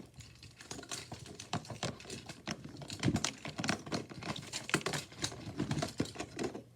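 Small plastic fidget toys being handled and sorted: a quick, irregular run of light clicks and clatters, several a second.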